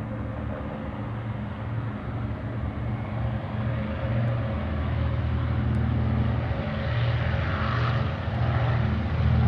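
A Consolidated PBY-5A Catalina's two Pratt & Whitney R-1830 Twin Wasp radial engines run with spinning propellers as the amphibian rolls along the runway. The sound grows steadily louder as it comes nearer.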